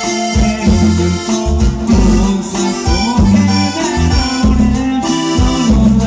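Dance band playing a cumbia: an accordion carries the melody over a bouncing bass line and a steady dance beat.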